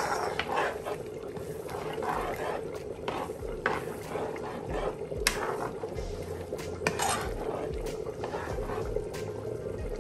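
Metal spoon stirring and scraping a thick hilsa roe curry in a non-stick frying pan, with sharp clicks every second or two as the spoon knocks the pan, over a steady hum.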